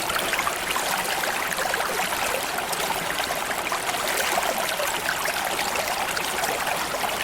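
A small stream or creek flowing steadily, water running and splashing over stones with a bright, even burble.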